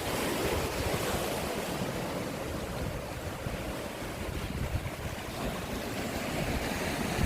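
Sea waves washing, with wind buffeting the microphone in a steady low rumble.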